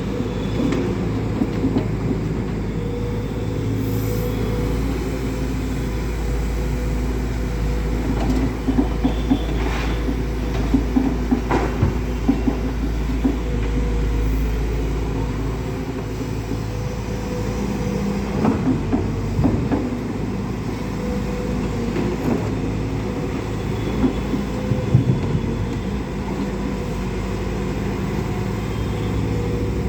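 Heavy diesel engine running steadily under a continuous low rumble, with scattered rattles and knocks at intervals.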